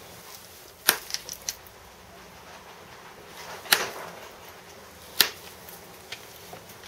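Pressure flaking notches into a Fort Hood chert scraper: sharp clicks as small flakes snap off under a pressure flaker. Three loud snaps come about a second, nearly four and just over five seconds in, with fainter ticks between.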